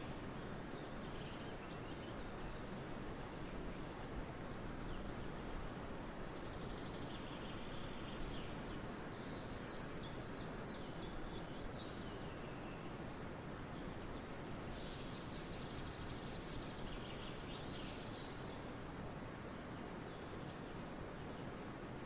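Steady outdoor background noise with faint high bird chirps coming and going, in clusters about a second in, around eight to eleven seconds in, and again around fifteen to eighteen seconds in.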